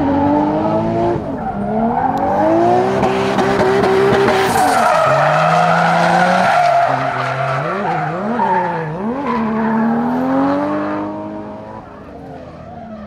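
Drift car's engine revving hard, its pitch rising and falling repeatedly as the throttle is worked, with the tyres squealing through the slide. The sound drops off near the end.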